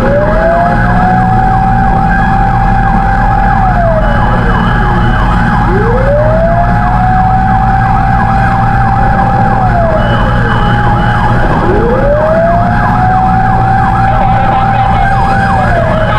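Fire truck sirens running together: one slow wail rising, holding its high pitch and falling away about every six seconds, and a second fast yelp sweeping up and down several times a second over it, with the trucks' engines rumbling low beneath.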